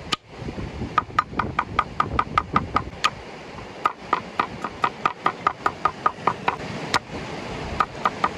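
Knife chopping vegetables on a cutting board: quick, even strokes about five a second, in runs broken by short pauses.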